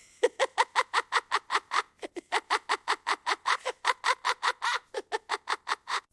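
A high-pitched voice laughing in a rapid, even "ha-ha-ha", about five pulses a second, with two short breaks.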